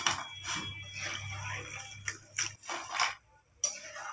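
Metal slotted spoon knocking and scraping against a deep-frying pan as diamond-cut chips are stirred in hot oil: half a dozen separate clicks and clanks, with a low hum under the first half.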